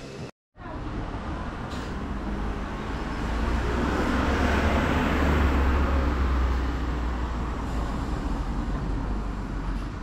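A road vehicle passing close by: engine and tyre noise with a deep rumble swells to a peak around the middle, then eases off. The sound cuts out completely for a moment just after the start.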